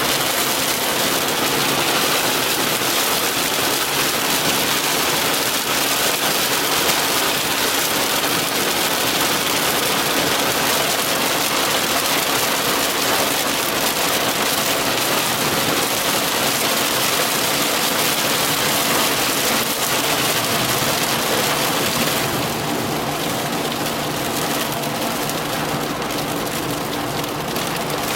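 Heavy rain pelting a moving car as a dense, steady hiss, with a faint steady engine hum underneath. The rain eases a little about three-quarters of the way through.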